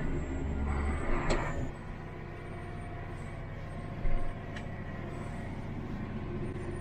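Vehicle engine running steadily, with a short click about a second in and a brief thump about four seconds in.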